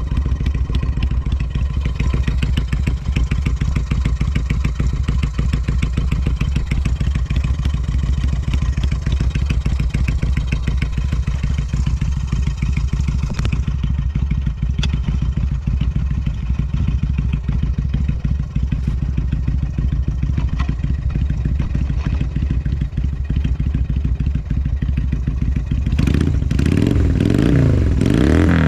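Yamaha Renaissa's 250 cc air-cooled V-twin idling steadily through a Supertrapp exhaust, with no abnormal noise. Near the end the throttle is blipped several times, the revs rising and falling.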